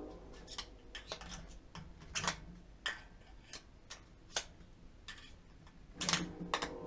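Scattered sharp clicks and light taps of hand tools working in a spark plug well, coming at irregular intervals. Background music comes back in near the end.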